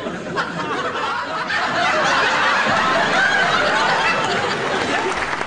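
Audience laughing, swelling louder about one and a half seconds in.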